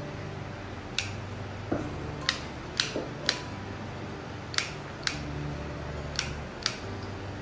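About ten sharp clicks at irregular intervals, over a low steady hum.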